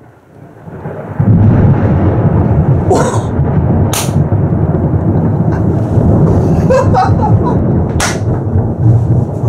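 Thunder after a nearby lightning strike: a deep rumble swells in over the first second, then rolls on loud and steady. A few sharp clicks sound over it.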